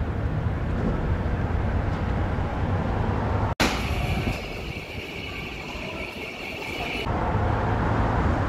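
Steady rumbling city background noise, of the vehicle or train kind, changing abruptly about a third and again about four-fifths of the way through. In the middle stretch a steady high tone runs over the rumble.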